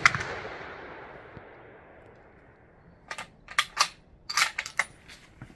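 M96 Mauser rifle in 6.5×55 Swede: the rifle shot's echo rolls away and fades over about two seconds, with one sharp crack just after it begins. About a second later comes a quick run of sharp metallic clicks and clacks as the bolt is worked to chamber the next round.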